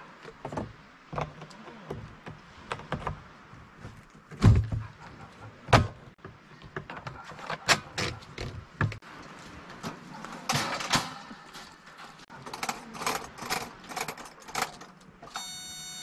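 Clattering, clicks and knocks of a plastic kerosene can, its siphon hose and a kerosene heater being handled, with two heavy thumps about four and a half and six seconds in. Near the end the heater's ignition button is pressed and a steady buzz starts.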